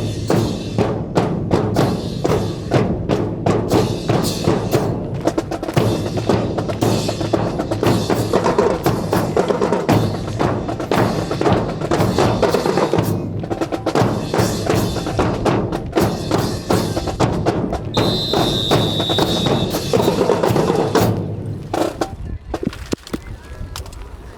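Marching drums, snare and bass drum, playing a fast cadence with many sharp strikes for a fancy drill. A short steady high tone sounds near the end of the playing, and then the drumming stops a few seconds before the end.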